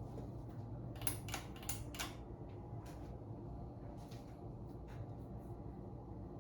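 Ceiling fan motor running with a steady low hum. A quick cluster of sharp clicks comes about a second in, with a few single clicks later.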